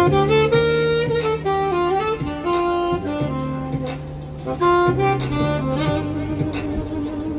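Saxophone playing a melody live, with long held low notes and a light beat underneath.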